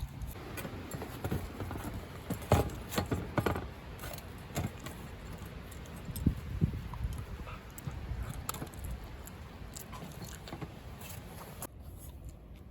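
Irregular light clicks, knocks and rattles with a faint jingling quality, scattered unevenly and a few louder than the rest.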